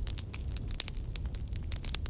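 Fire crackling: a dense, irregular stream of sharp pops and crackles over a steady low rumble.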